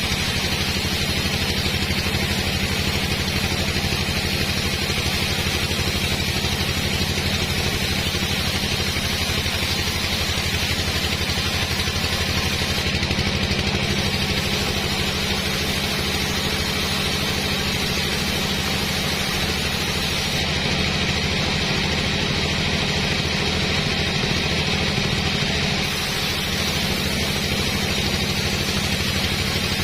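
Sawmill engine running steadily at an even pitch, with a constant hiss over it.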